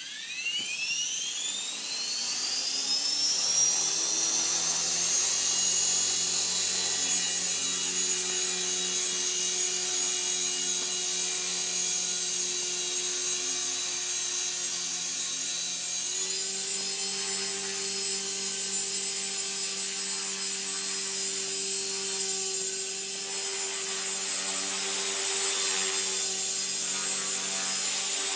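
Align T-Rex 450 Pro electric RC helicopter spooling up. The brushless motor and gear whine rises steeply in pitch over the first few seconds, then holds steady as it flies, with a small step up in pitch a little past halfway.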